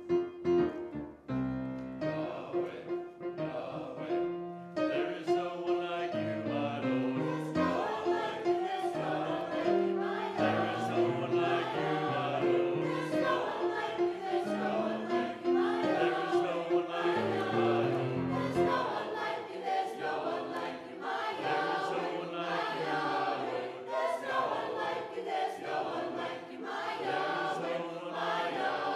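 Mixed church choir of men and women singing a hymn together in parts. The lowest notes drop away about two-thirds of the way through, leaving the higher voices.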